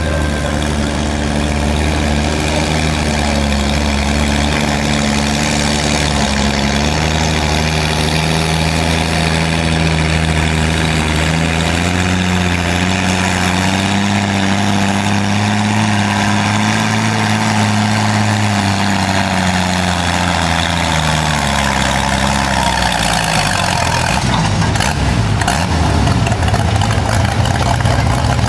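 Antique farm tractor engine running hard under load while pulling a weight-transfer sled. It is a loud, steady drone whose pitch climbs in the middle, then drops and fades about two-thirds of the way through.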